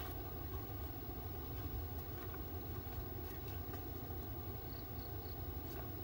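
Steady low outdoor background rumble with a few faint scattered clicks.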